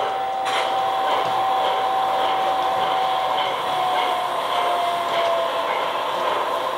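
LGB G-scale model locomotive running along the track with the tank wagons, its motor and gears giving a steady whine over a light regular clicking from the wheels. The whine drops slightly in pitch and stops about five seconds in.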